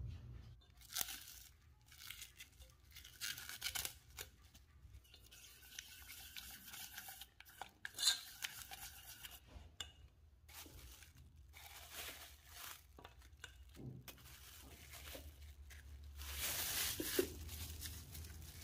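Food and utensil handling: irregular stretches of scraping and rustling, each about a second long, with a few light clinks.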